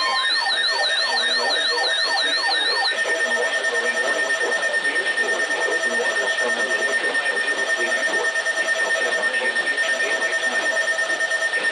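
Layered electronic alert tones. For about the first three seconds a siren-like warble sweeps up and down roughly three times a second; it then gives way to a steady high tone over a rapid, pulsing beep pattern.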